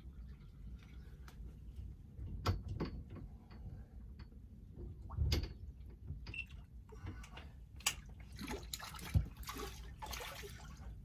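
Water splashing and trickling, with scattered sharp clicks and knocks and a louder spell of splashing about nine seconds in, as a hooked mullet is played at the surface close to the boat.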